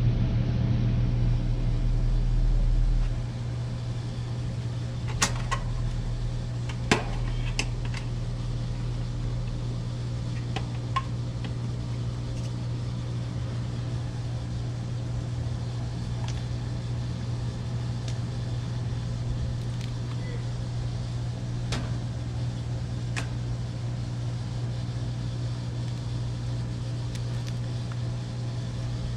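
Steady machine hum of an air-conditioning unit, with a few sharp clicks and taps scattered through it.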